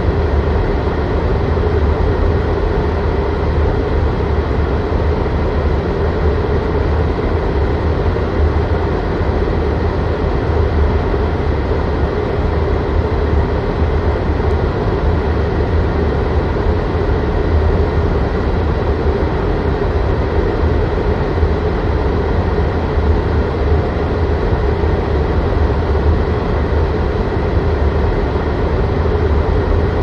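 Car heater blower fan running steadily inside the cabin: a constant rush of air through the dashboard vents over a low hum.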